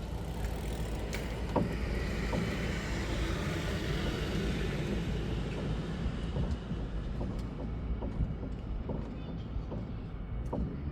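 Haval car rolling with a steady low rumble, and several short sharp knocks heard over it, the knocking that comes when the steering wheel is turned. The higher road noise fades about halfway through.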